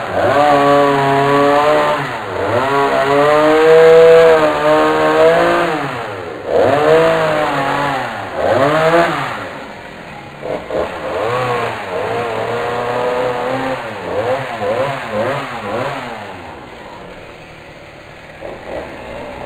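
An engine revving up and down repeatedly, its pitch rising and falling in long sweeps. It is loudest about four seconds in and dies away near the end.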